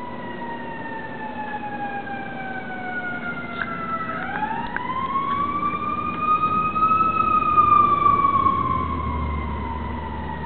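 A siren wailing: one long unbroken tone that falls slowly, sweeps back up about four seconds in, peaks a few seconds later and then slowly falls again.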